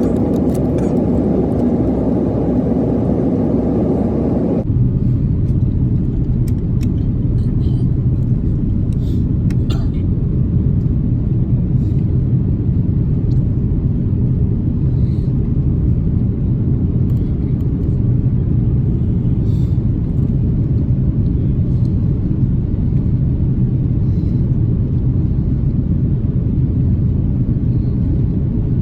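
Steady cabin rumble inside an Airbus A330 airliner, engine and airflow noise heard from a passenger seat. About four and a half seconds in it changes suddenly to a deeper, lower rumble.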